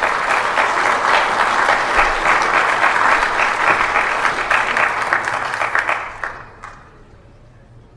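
Audience applauding after a talk: steady clapping from many hands that fades out about six seconds in.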